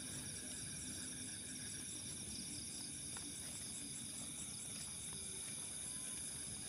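Night chorus of crickets and other insects: a steady high-pitched trilling, some of it in fast even pulses, with a few faint ticks.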